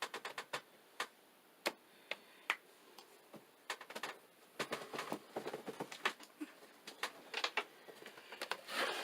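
Irregular light clicks and taps, sometimes several in quick succession, from the phone and its setup being handled and repositioned.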